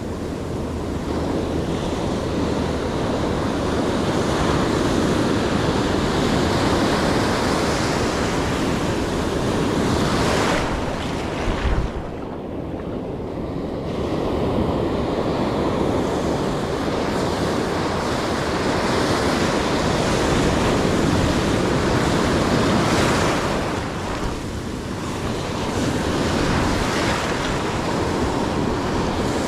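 Ocean surf breaking and washing up the beach, a continuous rush that swells and ebbs, with wind buffeting the microphone.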